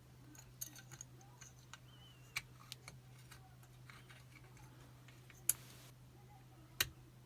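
Picking wire and tension tool working the levers of a Chubb Detector five-lever lock: scattered small metallic clicks and taps, with two sharper clicks about five and a half and nearly seven seconds in.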